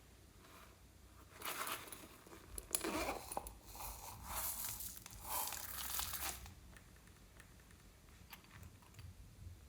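Crinkling and tearing noises from hands working slime and its mix-ins, in several irregular bursts from about a second and a half in until about six seconds in.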